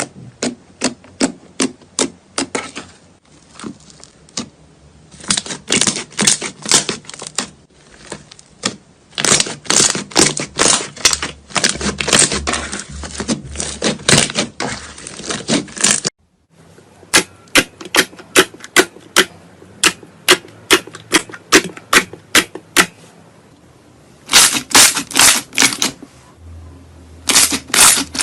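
Crunchy slime being squeezed and poked, giving runs of sharp crackling clicks and pops several a second, in bursts with short pauses between, and a brief cut to silence about halfway through.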